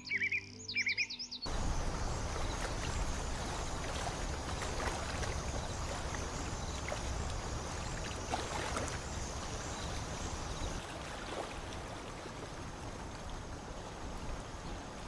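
Bird chirping over soft music for the first second and a half, then a sudden change to a steady rushing noise of water and wind at a lakeshore, with faint small ticks.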